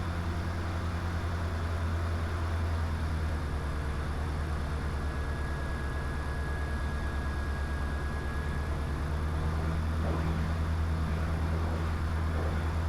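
Diamond DA20 light aircraft's engine running steadily, a low even drone heard inside the cockpit. A faint high steady tone sounds for a few seconds mid-way.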